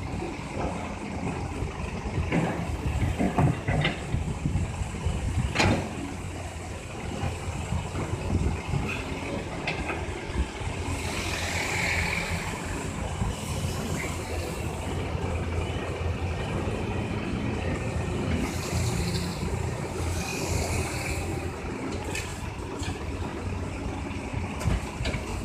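Caterpillar 320C excavator's diesel engine running steadily under load, with several sharp knocks in the first few seconds and two spells of hissing partway through.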